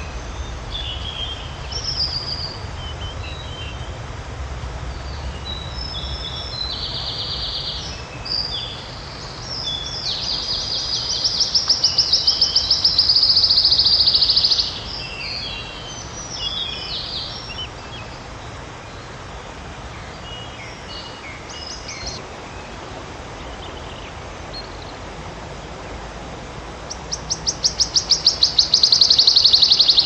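Wood warbler singing: two songs of high, quickly repeated notes that speed up into a loud shivering trill, one about ten seconds in and another near the end, with shorter scattered chirps in between.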